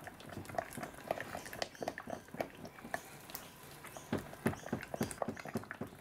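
Thick emulsified body butter cream being stirred by hand in a glass bowl: irregular wet squelching and smacking, with light scrapes against the glass, as fragrance oil is mixed in.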